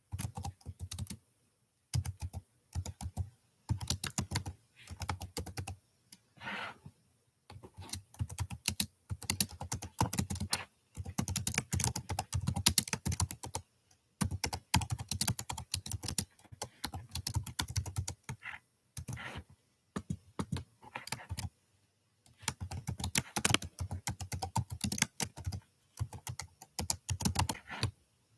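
Typing on a computer keyboard: fast runs of keystrokes in bursts of one to three seconds, broken by short pauses.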